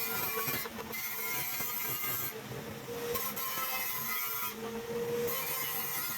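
A machine running steadily with a constant hum and a hiss that briefly drops out a few times.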